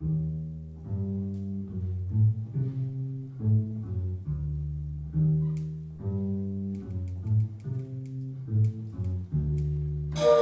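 Double bass plucked pizzicato in a jazz line of separate low notes, each one struck and then fading, with light high ticks from the drums joining in past the middle. Right at the end the saxophones come in loudly on a held note.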